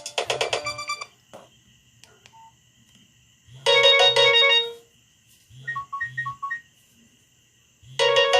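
Nokia 6085 mobile phone playing ringtones through its loudspeaker: a fast multi-note tune ends about a second in, then a new looping ringtone starts, a bright chime of several notes followed by two short soft beeps, with the chime coming round again about four seconds later.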